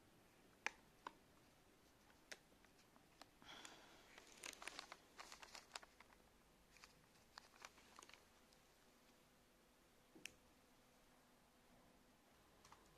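Faint rustling and crinkling of disposable face masks and their plastic packaging being handled, with scattered light clicks and a denser stretch of crinkling about four to six seconds in.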